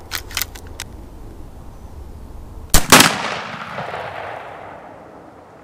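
A few light clicks, then about three seconds in a shotgun fires a 3-inch double-aught buckshot shell: one very loud blast with a second crack a quarter second later, followed by a long rolling echo that fades away over about two and a half seconds.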